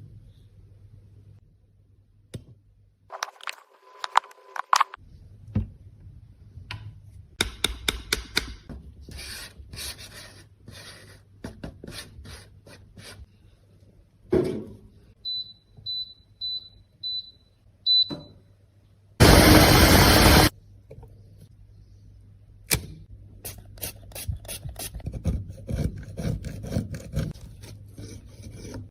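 Small hand-work sounds of scraping, rubbing and tapping. In the middle come five short, high electronic beeps in a row, then a loud hiss lasting just over a second.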